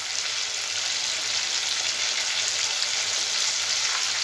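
Marinated chicken pieces deep-frying in hot oil in a kadhai, a steady sizzling hiss.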